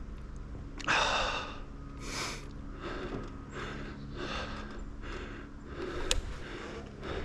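A man breathing hard, catching his breath, in a run of loud exhales and inhales about once a second; the first, about a second in, is the loudest.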